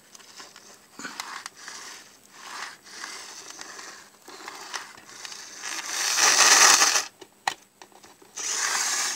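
Early Bachmann HO-scale F-unit model diesel's pancake motor run in short spells on test power, a rough grinding whir, longest and loudest about six to seven seconds in with a shorter spell near the end. It runs roughly, not the smoothest runner.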